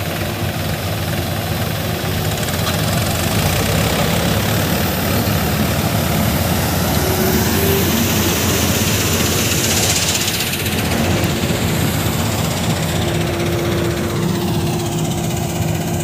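Steady running of heavy farm diesel engines: a Bakhsish 930 combine harvester working through standing wheat, with a tractor close by.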